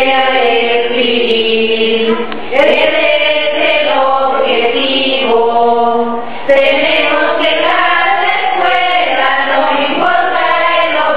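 Background music of slow singing: long, held sung phrases, a new phrase beginning about every four seconds.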